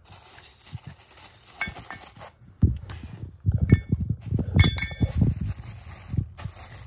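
Plastic bags of ceiling fan parts rustling and crinkling as they are handled, with small metal hardware clinking a few times and soft knocks as parts are moved around on carpet, busiest about three to five seconds in.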